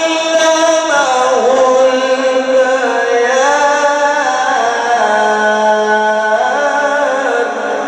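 A man's voice chanting Quran recitation in the melodic mujawwad style, holding long ornamented notes. The pitch glides down about a second in, moves through several held notes, settles on a low note around the middle and climbs again near the end.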